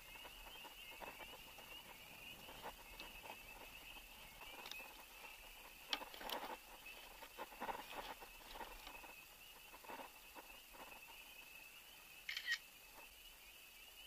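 Faint scattered clicks and knocks of hands handling a fish and gear in a plastic kayak. A short sharp click near the end is typical of a phone camera shutter.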